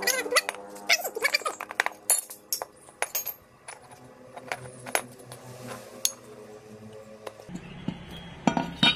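Sharp metallic clinks and knocks as a steel tube swing-arm frame and loose steel pipe bushings are handled on a concrete floor while rubber hose is worked into the pivot pipes. The clinks come thick at first, then sparser, with two louder knocks near the end.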